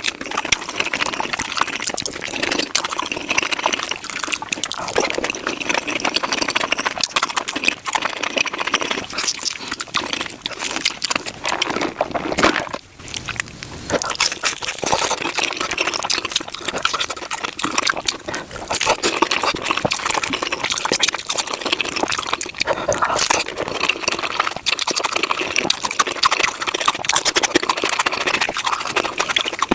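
Close-miked mukbang eating sounds of tacos being chewed, played back at five times speed: a rapid, dense crackle of chewing and mouth noises, with a brief lull about thirteen seconds in.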